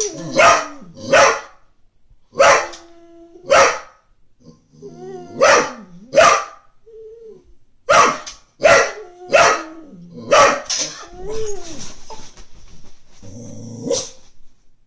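Brittany dog barking in sharp single barks, about a dozen, in bunches, at a cat outside the window, with drawn-out whining and growling between the barks.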